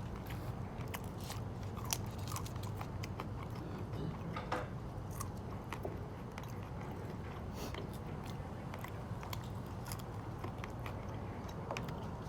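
A person chewing and biting into food, with scattered small crunches and clicks over a steady low background hum.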